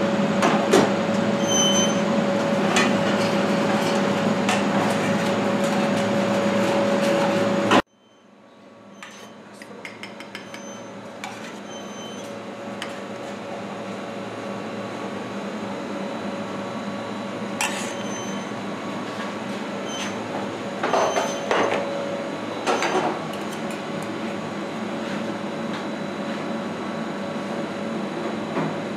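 Restaurant kitchen at work: a loud steady hum with pans and pot lids clattering on a gas range. About eight seconds in it cuts off abruptly, and a quieter steady hum follows with a few sharp clinks of utensils on crockery.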